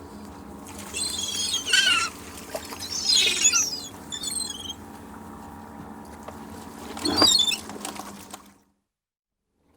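Gulls calling in several bursts of squawks with falling pitch, over a steady low background. The sound cuts off suddenly near the end, leaving silence.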